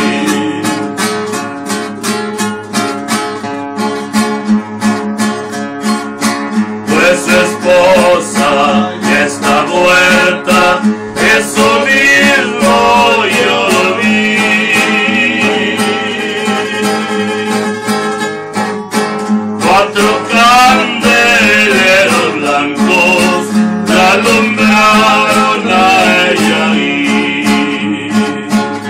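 Two acoustic guitars playing a song together, strummed and picked at a steady pace.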